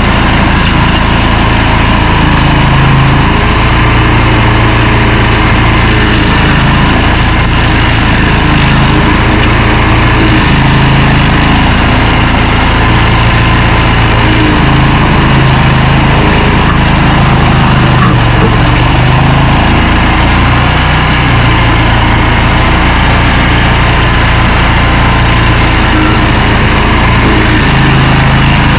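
Stump grinder engine running hard under load, its note sagging and recovering every couple of seconds as the cutter wheel bites into the stump, with the grinding noise of the wheel over it.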